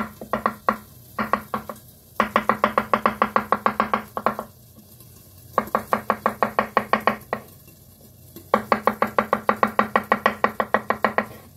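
Chef's knife slicing mushrooms on a wooden cutting board: quick, even knocks of the blade on the board, about seven a second, in runs of one to two seconds with short pauses between.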